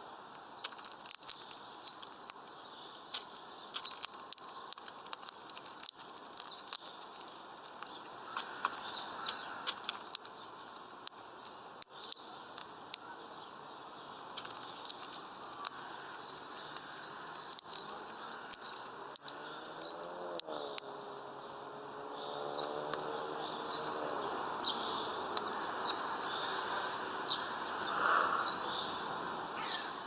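Small birds chirping and calling in quick, high notes, with sharp clicks from a hawfinch cracking sunflower seeds in its beak. A low wavering hum comes in about two-thirds through, and the background grows louder after it.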